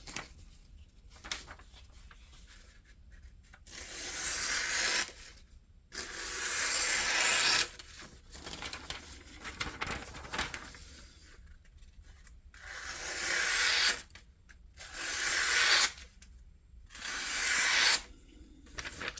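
Thick 4 mm AUS-10 tanto blade of a Kubey Bravo One knife drawn through material in five long slicing cuts. Each cut is a scratchy, tearing hiss that builds up and stops sharply, with faint rubbing between cuts.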